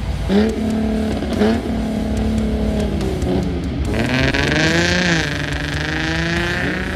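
Car engine revving in short blips, then accelerating hard, its pitch climbing and easing as the car pulls away. A high screeching hiss joins in partway through, typical of tyres spinning on the launch.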